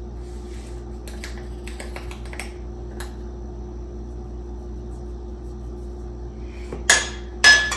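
Metal measuring spoon clicking and scraping in a spice jar, then two sharp metallic clinks with a brief ring as the spoon is knocked against a metal stockpot near the end.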